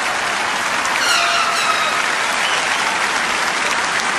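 Large convention audience applauding steadily after an applause line. One voice calls out above it about a second in, falling in pitch.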